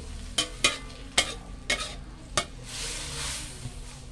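Metal spatula scraping and clanking against an aluminium wok while stir-frying glass noodles and cabbage, about six sharp clanks in the first two and a half seconds. A hiss of sizzling food swells between the strokes near the three-second mark.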